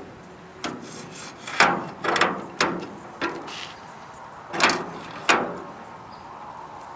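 Metal flat-bar bracket holding a water heater element being handled and shifted on a metal barrel's rim: a string of scrapes and knocks.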